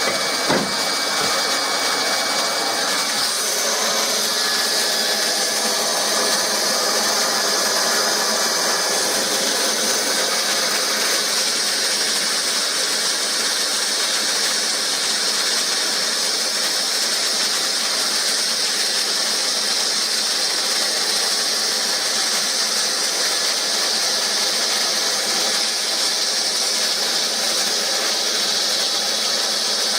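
Hot-air plastic welder's blower running steadily with a continuous hiss as it blows through the welding nozzle, with a short knock just after the start.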